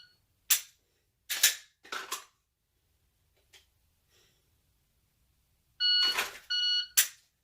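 Electronic shot timer giving its start beep about 6 seconds in and its par beep 0.7 s later, followed by a sharp dry-fire click of a Glock 34 pistol's trigger. Before that, short clicks and rustles of the pistol being handled in its holster.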